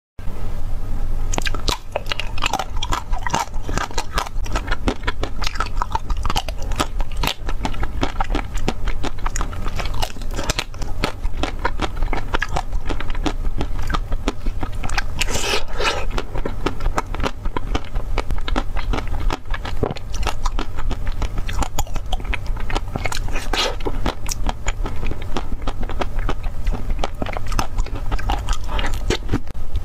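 Close-miked biting and chewing of a frozen ice cream bar on a stick: a dense, continuous run of crunches and mouth noises, over a steady low hum.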